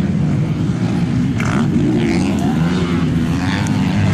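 Motocross dirt bike engines running and revving on the track, a steady loud drone with wavering pitch.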